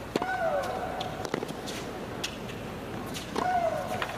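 Tennis rally: sharp racquet strikes and ball bounces, with a player letting out a long shriek that falls in pitch as she hits, twice, about three seconds apart.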